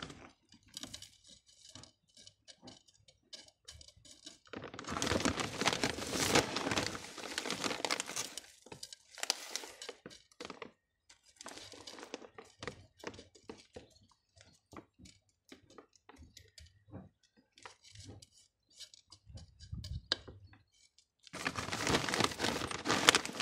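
Volcanic gravel scooped by hand from a plastic bag and spread onto a plant pot: small stones clinking and crunching, with the bag crinkling. There are longer bursts of rustling and pouring about five and nine seconds in and again near the end, and scattered small clicks of stones between them.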